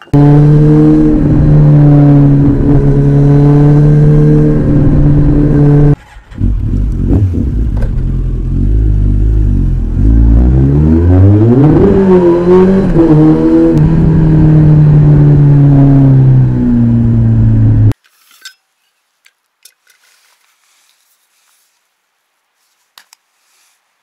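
Kawasaki ZX-14R's inline-four engine through an Akrapovic exhaust, running at steady revs with a brief dip about six seconds in, then revs rising and falling before it holds steady again. It cuts off abruptly about three quarters of the way through, leaving near silence with a few faint clicks.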